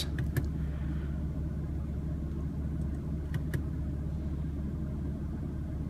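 2016 BMW M3's twin-turbo inline-six idling steadily, heard from inside the cabin as a low hum, with a few faint clicks.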